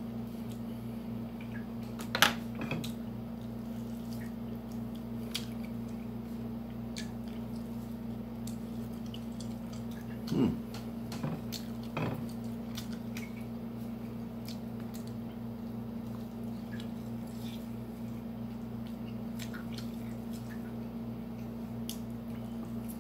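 A person eating with a fork: scattered clicks of the fork against the bowl and occasional wet chewing and mouth sounds, with a louder click about two seconds in and a couple more in the middle, over a steady low hum.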